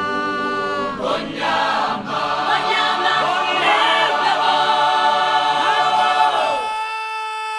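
Background music: a choir singing sustained, layered chords, thinning to a single held note near the end.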